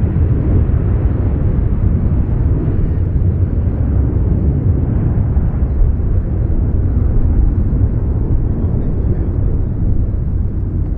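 Boeing E-3A Sentry's four TF33 turbofan engines in a loud, deep, steady rumble as the jet climbs away. The higher part of the noise fades a little over the last few seconds.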